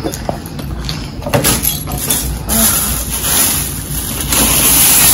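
A bag and its packaging rustling and crinkling as someone rummages through it, with a few light handling knocks early on, getting louder in the second half.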